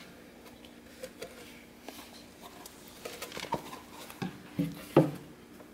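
Soft rustling and light clicks in a hamster tank's bedding, growing into a few sharper knocks over the last couple of seconds.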